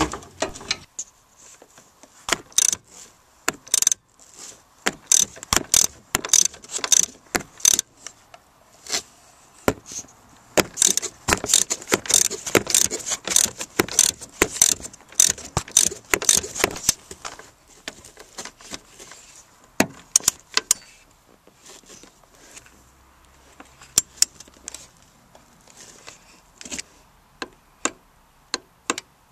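Irregular metallic clicking and clinking of a hand tool and nuts as the rear strut's upper mount nuts are threaded onto the body studs and tightened. The clicks come thick and fast through the middle and thin out toward the end.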